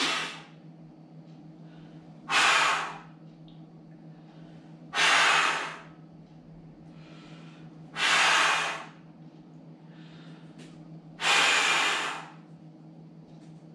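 A man's forceful, hissing breaths blown out through the mouth as a vocal warm-up exercise. There are five of them, each about a second long, a few seconds apart.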